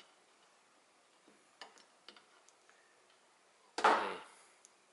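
Faint metal clicks and taps as a screwdriver works at a pin inside an electric hammer's aluminium gearbox housing. About four seconds in, a single much louder clunk with a brief scraping tail as the housing is lifted off the bench.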